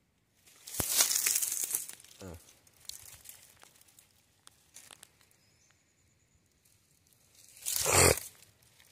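Dry leaves and brush rustling and crackling in two loud spells, one near the start and one near the end, with scattered small clicks between. A short falling whine about two seconds in.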